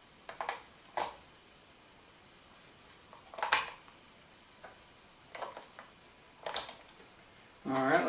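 AA batteries being pushed one by one into a toy RC car's plastic battery compartment against the spring contacts: a few short, sharp clicks and clacks spaced a second or so apart, with quiet between.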